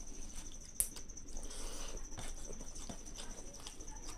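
Close-miked wet, sticky clicks of fingers mixing and pressing rice with dal and curry on a steel plate, with one sharper click about a second in.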